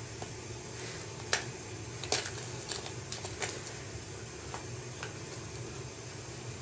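Laces of a tan leather work boot being pulled through its metal eyelets: light rustling with a handful of short sharp clicks, over a steady low hum.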